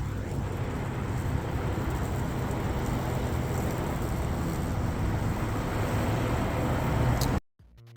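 Yeoman eM400C remote-control electric lawnmower running as it cuts grass: a steady noise over a low hum. It cuts off suddenly about seven and a half seconds in, and music starts.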